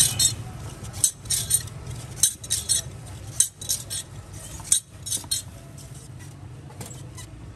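Metal scoop scraping and clinking through a tray of cut sugarcane pieces, in bursts of clatter about once a second as the pieces are tipped into a plastic bag. The clatter stops about five and a half seconds in, leaving a low steady hum.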